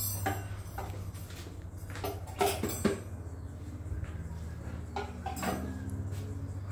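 Metal whisk and beater attachments of a Britânia stand mixer clinking and knocking against the stainless steel bowl and the mixer head as they are handled and fitted: a scatter of sharp clicks, the loudest a couple of knocks about two and a half seconds in.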